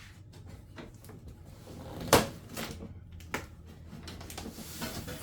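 Unboxing and handling noises: parts and packaging being knocked, set down and moved, with scattered clicks and one sharp knock about two seconds in, then another a second later.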